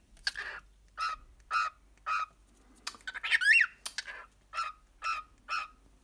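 Cockatiel calling in short, evenly spaced chirps, about two a second, with one whistled note that rises and falls about three seconds in.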